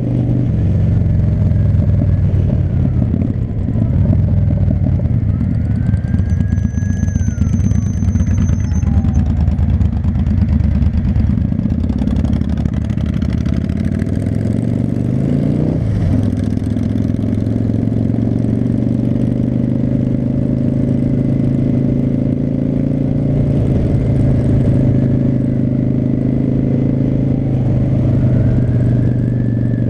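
Cruiser motorcycle's V-twin engine running while riding in traffic. It revs up through the gears about halfway through, then settles into steady cruising. Near the end a siren begins to wail faintly.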